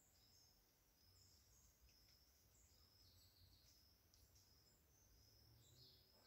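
Very faint tropical forest ambience: short high-pitched chirps and trills from small creatures repeating over and over, over a low background rumble.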